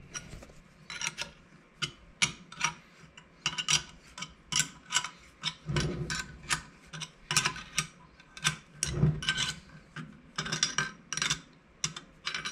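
Small steel wrench working the housing bolts of a K24 turbocharger during reassembly: a run of short metallic clicks, two or three a second and irregular, as the wrench is reset and turned on each nut, with a couple of duller knocks about halfway through as the turbo is handled on the bench.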